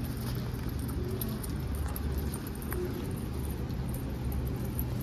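Pigeons pecking at scattered grain: many light, irregular taps over a steady low rumble.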